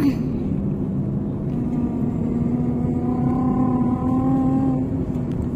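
Road and engine noise of a moving car heard from inside the cabin: a steady low rumble with a constant hum.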